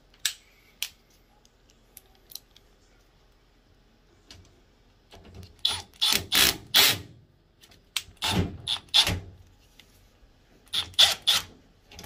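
Cordless brushless driver setting a sheet-metal screw into a washing machine's valve bracket: a couple of light clicks, then three short spurts about two and a half seconds apart.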